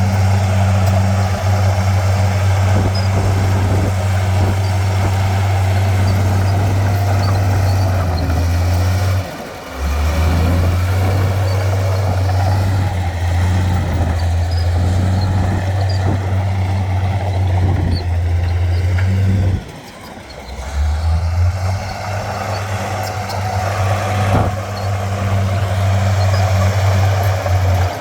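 Heavy diesel engine of earthmoving machinery running steadily with a loud, low drone, briefly dropping away about nine seconds in and again about twenty seconds in.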